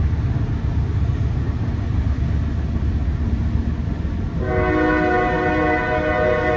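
Loud train rumbling past; about four and a half seconds in, its horn starts blowing a steady chord of several notes.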